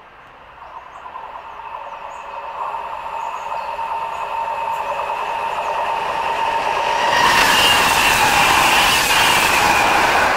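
Freight train led by Pacific National NR class diesel-electric locomotives approaching at speed and rushing past, growing steadily louder until the locomotives pass about seven seconds in. From then on there is loud engine, wheel and rail noise with wind buffeting the microphone.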